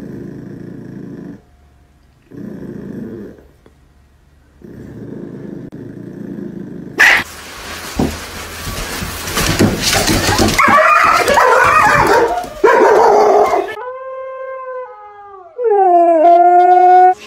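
Dogs from several short clips: first a small dog growling in three short bouts, then a loud, noisy stretch of dog sounds, and near the end a husky howling in two long calls, the first falling in pitch and the second stepping up and rising.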